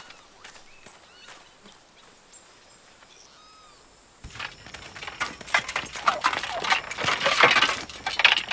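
Soft bird chirps over quiet outdoor background. About halfway through, a louder busy clatter of many knocks and rustles takes over and swells toward the end.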